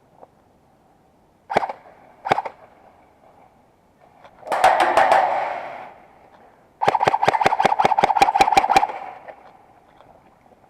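Electric airsoft guns firing: two single shots, then a short rapid burst, then a full-auto burst of about two seconds, at roughly seven shots a second over the steady whine of the gearbox.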